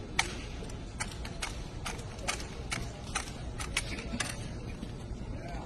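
Sharp slaps and clacks of a drill rifle being spun and caught by hand, about ten of them at uneven spacing, over a low steady hum of the hall.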